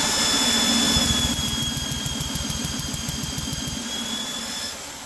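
Electric drill turning a walk-behind mower's engine over by its flywheel nut with the spark plug out, to clear oil from the cylinder. A steady high whine sits over a fast rhythmic pulsing from the turning engine, and the drill stops near the end.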